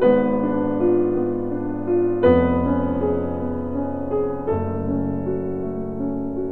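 Light keyboard background music on piano, with a new chord struck about every two seconds.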